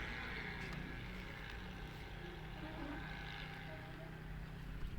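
A motor running steadily, a low even hum.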